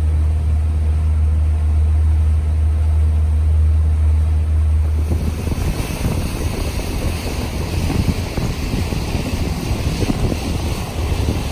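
Motorboat under way: a steady low engine drone for about five seconds, then it gives way to a loud rushing of wind and water.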